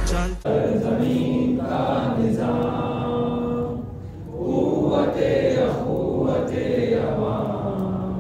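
Chanting voices singing long held notes, with short breaks between phrases. A song cuts off just after the start.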